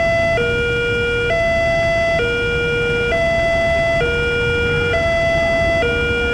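Railway level-crossing warning alarm sounding while the crossing is closed for an approaching train: an electronic two-tone signal that alternates between a higher and a lower tone about every second, over a steady low rumble.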